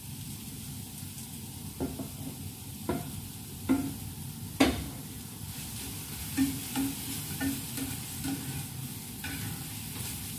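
Sliced red onions sizzling in a frying pan as they are stirred with a spatula, which knocks and scrapes against the pan several times, sharpest about four and a half seconds in.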